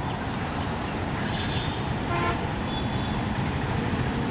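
ALCO diesel-electric locomotive running as it approaches slowly with empty oil tank wagons, a steady low engine rumble. A short horn toot sounds about halfway through.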